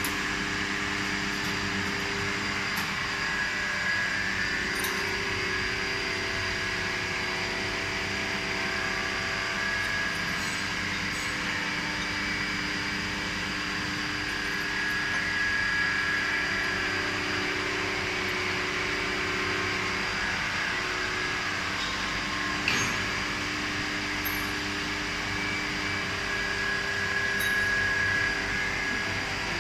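Steady hum of running factory machinery, with several held tones that swell and fade now and then. A single sharp metallic knock about three-quarters of the way through.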